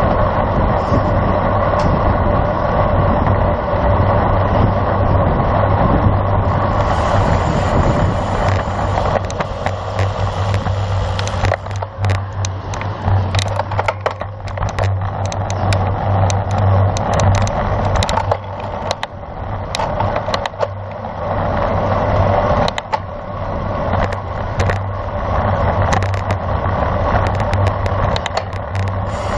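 Wind rushing over the microphone of a camera on a moving road bike, a steady low rumble with road noise. From about twelve seconds in, it is broken by frequent short clicks and knocks, like rattles over a rough surface.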